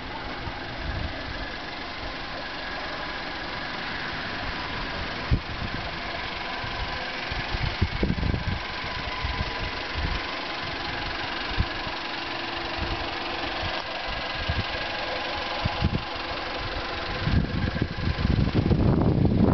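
Fiat Grande Punto 1.4 16-valve 95 hp four-cylinder petrol engine idling steadily with its stock exhaust, with a few short low bumps on the microphone. Near the end a low rumble of wind on the microphone comes in.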